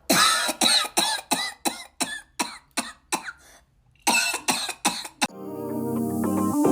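A person coughing in a fit: a run of about nine harsh coughs, a brief pause, then four more. Electronic music fades in near the end.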